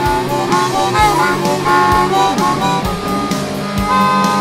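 Harmonica and electric lead guitar playing together over a backing track in G minor, with a steady drum beat; a long held note near the end.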